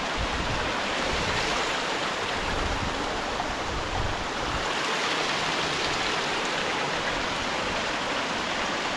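Mountain stream rushing over rocks, a steady full rush of water.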